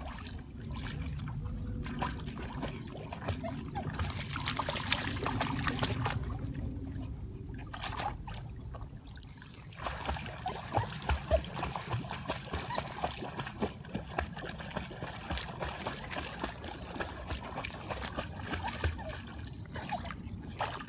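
Dogs swimming in a lake: water splashing and lapping around their paddling, with a dog's short high whines now and then.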